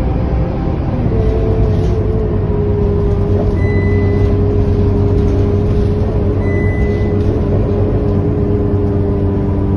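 Scania K230UB city bus's rear-mounted diesel engine running steadily while the bus cruises, heard from inside the passenger cabin with road rumble. A steady engine note sets in about a second in.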